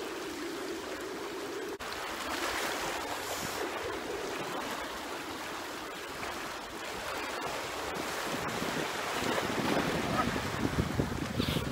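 Small sea waves lapping against a rocky seawall, with wind buffeting the microphone, the gusts growing stronger near the end.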